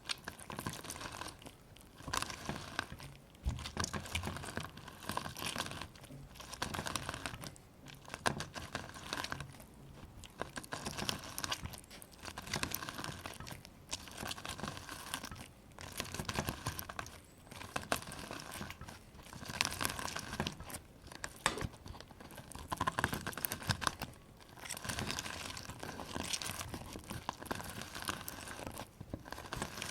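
A lemon squeezed by hand, the peel and pulp crackling with each squeeze. The squeezes come again and again, each lasting a second or two, with short pauses between.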